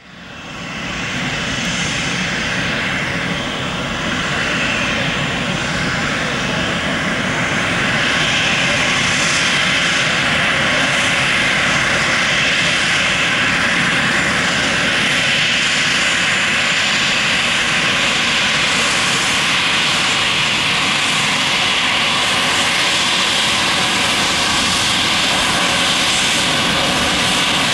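Jet engines of an Embraer ERJ-195, its two General Electric CF34-10E turbofans, running loud and steady, with several steady whining tones over a broad rush. The sound swells over the first several seconds and then holds level.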